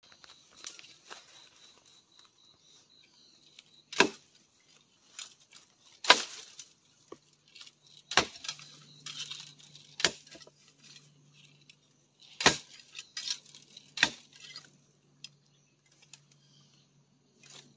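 Bamboo being chopped by hand: six hard strikes on the green culms, roughly two seconds apart, with rustling of leaves and dry stalks in between.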